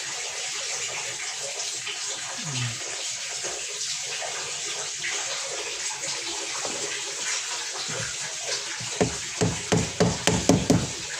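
Water gushing steadily out of a washing machine's drain after its stuck drain valve has been freed. About nine seconds in, background music with a pulsing electronic beat comes in.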